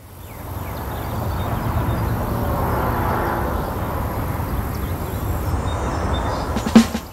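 Low, steady rumble of vehicles crossing the elevated bridge overhead, fading in at the start and swelling about midway.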